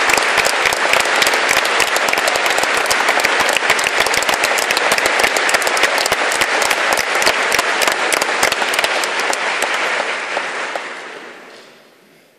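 Audience applause, many hands clapping, dying away near the end.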